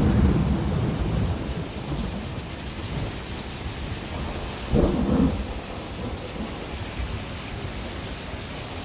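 Thunder rumbling over steady rain, loudest at the start and fading over the first two seconds. A short, louder burst comes about five seconds in.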